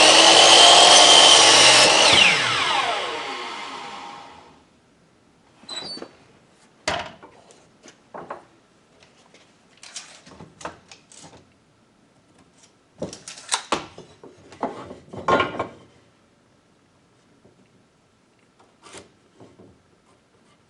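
Electric miter saw (chop saw) running through a cut in a board, then the blade spinning down with a falling whine that fades out about four seconds in. After that, a scattered series of short knocks and clatters.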